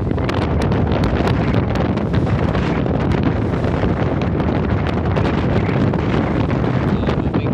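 Strong wind buffeting the microphone on a tour boat at sea: a loud, steady rumble with frequent crackles.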